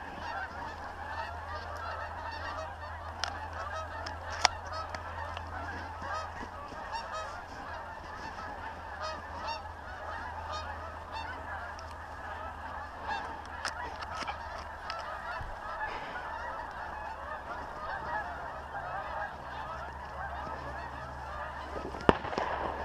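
A large flock of wild geese calling continuously, with many honks overlapping. Two sharp knocks stand out, one about four seconds in and a louder one near the end.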